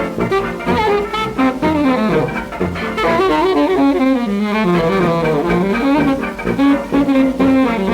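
1930 hot jazz band recording played from a 78 rpm record: horns carrying the melody over a steady beat.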